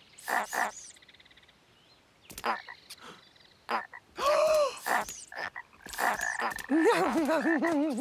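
Cartoon frogs croaking one after another: a few short croaks, a longer croak with a rising and falling pitch about four seconds in, then a fast, wavering run of croaks near the end.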